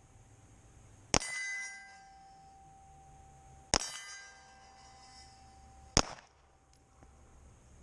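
Three pistol shots at steel targets, about two and a half seconds apart. The first two are each followed by the clear ring of a hit steel plate fading over a second or so; the third is a sharp crack with almost no ring after it.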